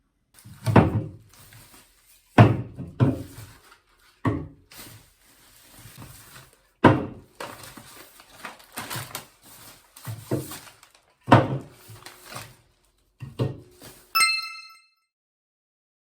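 A series of dull thunks and knocks, one every second or two, each dying away quickly, with a short bright chime near the end.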